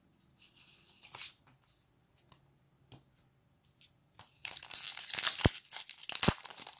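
Foil wrapper of a Magic: The Gathering Rivals of Ixalan booster pack crinkling and tearing open by hand, starting about four seconds in with a couple of sharp snaps. Before that, only a few faint taps.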